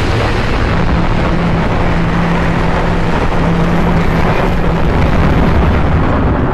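Custom Godzilla sound effect: a loud, sustained rush of dense noise at an even level, with a low steady hum running through it from about a second in until past the middle.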